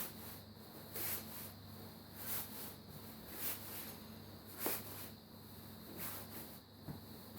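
Nylon hammock fabric and mosquito net rustling and swishing in repeated handfuls, about one every second or so, as the hammock is stuffed into its attached stuff sack.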